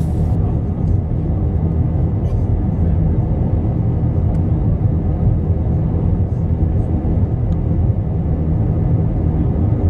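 Steady, deep cabin noise of an Airbus A321 in flight: engine and airflow sound heard from inside the passenger cabin.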